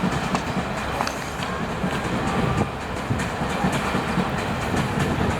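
Train moving slowly through the rail yard: a steady rumble with scattered short clicks from the wheels on the track.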